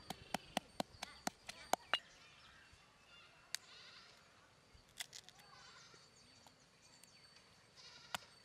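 Stone pestle knocking in a granite mortar while garlic and ginger are crushed: sharp knocks a few times a second for the first two seconds, only a few scattered knocks in the middle while pieces are added, then knocking again at the very end.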